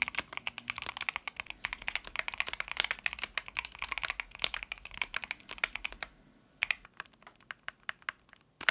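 Typing on a stock, unmodified Keychron Q1 HE keyboard with Gateron magnetic switches: fast, steady keystroke clicks that thin to a few scattered presses about six seconds in, then pick up again at the very end.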